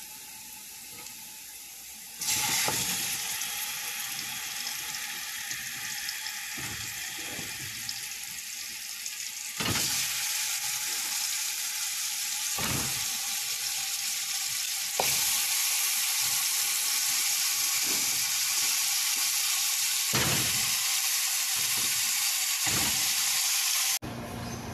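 Turkey pieces sizzling as they brown in hot fat in a cooking pot, with a few knocks of a utensil against the pot. The sizzle steps up in loudness about 2 seconds in and again about 10 and 15 seconds in.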